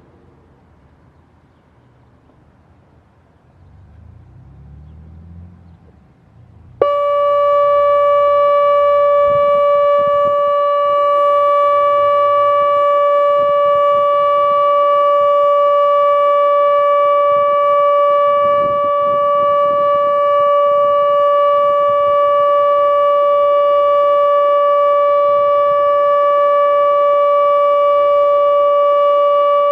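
ATI HPSS-16R electronic outdoor warning siren sounding its steady alert tone. It cuts in abruptly about seven seconds in, after a few quiet seconds, and holds one unwavering pitch.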